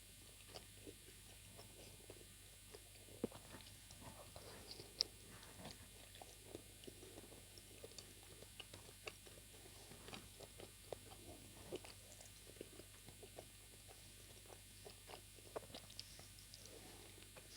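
Faint, close-miked chewing of steamed chicken momos (dumplings): scattered soft wet mouth clicks and smacks at an uneven pace, with a sharper click about five seconds in.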